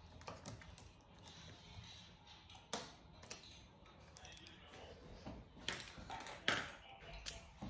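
Faint, scattered clicks and taps of plastic gel pens being picked out of a clear plastic pen case and handled, a few sharper clicks standing out.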